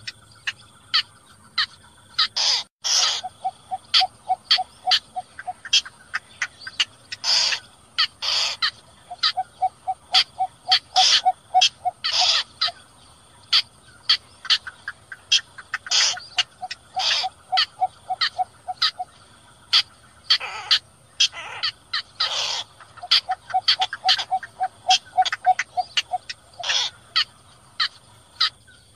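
Played-back lure recording of small bitterns calling, the cinnamon bittern (cò lửa) and the cò lép. Sharp short calls repeat at uneven intervals. Between them come several runs of rapid, even, low clucks, about five or six a second for two to three seconds each, over a faint steady hiss.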